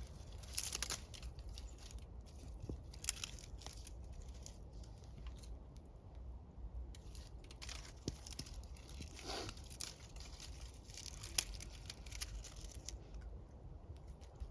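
Burning wood in a bonfire crackling, with irregular sharp pops and snaps over a steady low hum.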